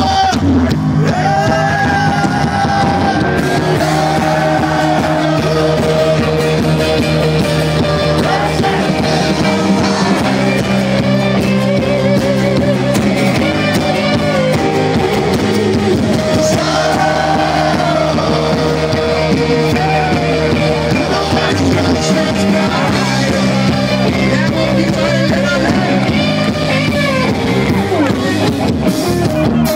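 Rock band playing with a lead singer: a sung melody with vibrato over held chords.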